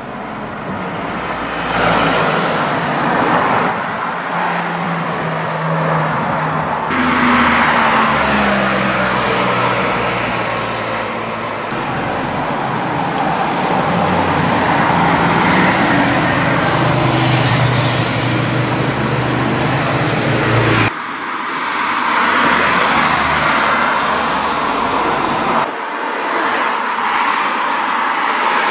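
Sports car engines driving past in street traffic, one after another, their pitch rising and falling as they rev and pass, over tyre and traffic noise. The sound changes abruptly several times where shots are cut together.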